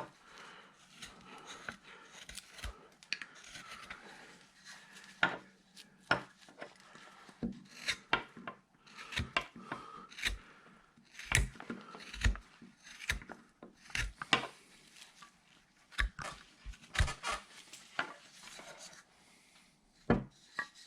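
Carving knife paring wood from a basswood-style bandsawn carving blank, with short irregular scraping cuts and small clicks of the blade on the wood.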